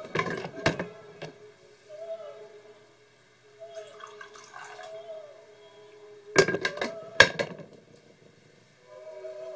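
Kitchen clatter of cups and dishes in two short bursts, one at the start and one about six seconds in, with a pour of liquid between them, as coffee is being made. Soft music with held notes plays underneath.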